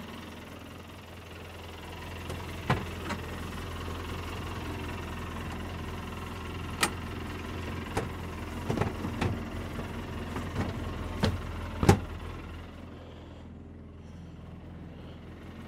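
2013 Polaris Ranger 800's twin-cylinder engine idling, running on both cylinders now that its injector connection is repaired, with a string of sharp clunks and knocks as the seat is set back in place. The sound gets quieter near the end.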